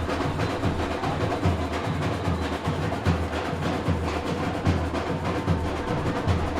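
Several African hand drums played together in a fast, steady groove: deep bass strokes recurring under dense, sharp higher strokes, with a crisp knocking percussion part on top.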